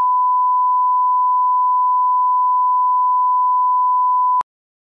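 Steady 1 kHz reference test tone of a television colour-bar signal, one unchanging pure pitch that cuts off suddenly near the end.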